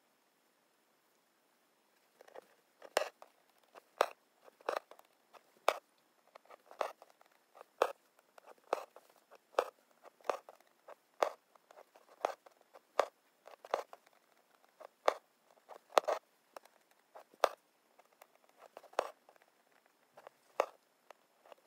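Embroidery needle punching through fabric stretched taut in a hoop, with thread drawn through after each stitch. A run of sharp pops and rasps, about two a second, starting about two seconds in.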